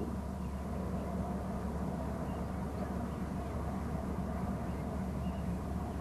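Steady low outdoor rumble from the camera's microphone, with no distinct event.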